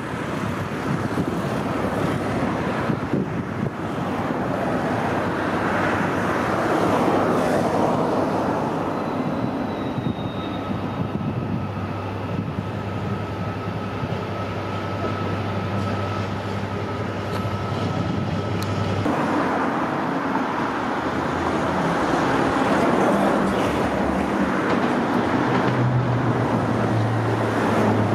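Class 66 diesel-electric locomotive moving slowly, its EMD two-stroke diesel engine running with a steady low drone over general rail noise. The engine note shifts partway through.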